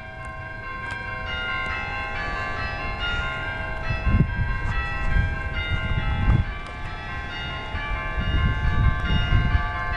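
Church bells pealing for the Russian Orthodox New Year: several bells of different pitches struck in quick, overlapping succession, each ringing on. Several bursts of low rumble come and go over the bells.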